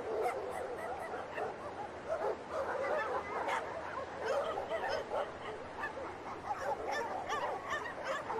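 Many short animal cries overlapping densely, each one a quick rise and fall in pitch, with no let-up across the whole stretch.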